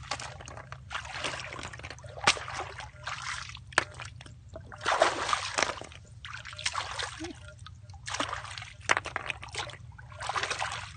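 Shallow water splashing and sloshing in short, irregular bursts as hands and feet move through it, with a few sharp clicks.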